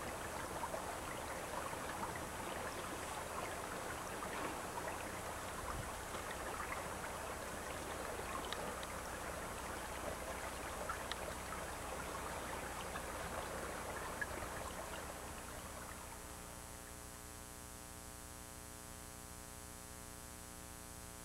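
Steady rushing outdoor noise, like running water or wind, with a few faint ticks. About three quarters of the way through it drops away to a quieter steady electrical hum.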